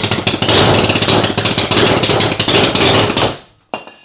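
Homemade 180cc single-cylinder four-stroke engine with 3D-printed parts running loudly, with a fast, rough firing rhythm. It dies away about three seconds in, and a short click follows.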